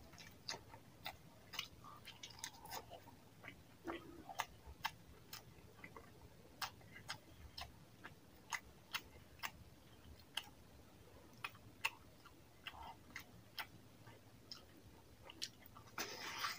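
Close-up chewing of chicken curry and rice eaten by hand: many short wet mouth clicks and smacks at an uneven pace, with a louder stretch of mouthful noise near the end as another handful goes in.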